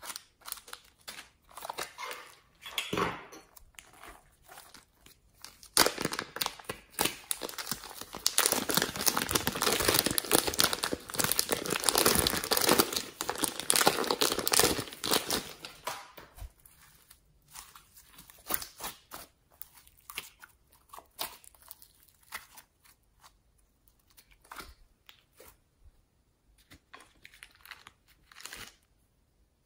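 Clear plastic zip bag crinkling as a green slime is squeezed and pulled out of it, a dense crinkle lasting about ten seconds in the middle. Short scattered rustles and clicks of handling come before and after.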